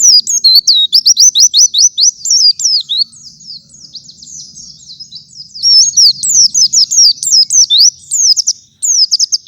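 White-eye (pleci) singing a fast, unbroken run of high, sweeping chirps. The song drops softer for a couple of seconds in the middle, then comes back at full strength with a short break near the end.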